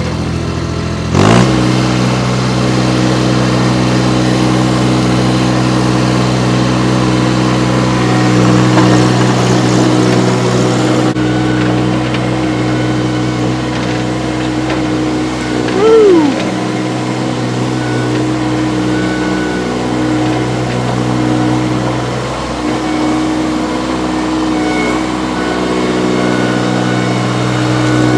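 Baumalight TRL 630D track loader's three-cylinder Kubota diesel revving up from idle about a second in, then running steadily at the higher speed. A short falling squeal cuts in once near the middle.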